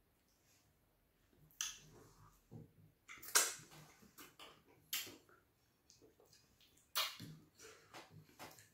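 Wet mouth sounds of eating fufu with ogbono (draw) soup by hand: short, sharp smacking and slurping bites about every one to two seconds, with softer chewing between.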